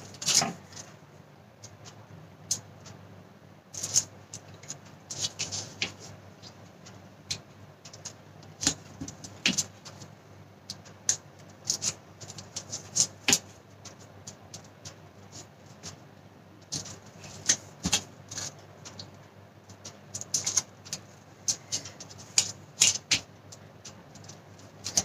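Paper and card being handled: irregular crisp rustles, clicks and light taps as small paper envelopes backed with double-sided tape are peeled and pressed onto a card cover, over a faint steady low hum.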